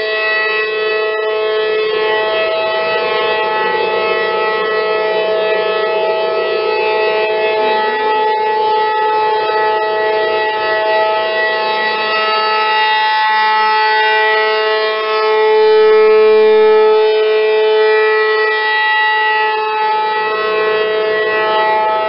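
Outdoor tornado warning siren sounding a steady, held tone made of several pitches at once, swelling louder about two thirds of the way through.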